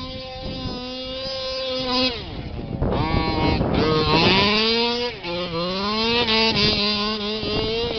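HPI Baja 5T RC truck's two-stroke petrol engine running at a steady pitch for about two seconds. The throttle then drops, and the engine is revved up and down several times as the truck slides on grass.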